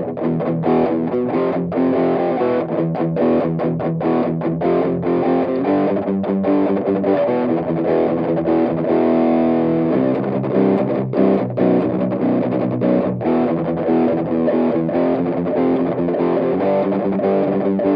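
Electric guitar chords and picked notes played through a Cab Screamer60 amp pedal driving a guitar speaker cabinet directly, with no amp head.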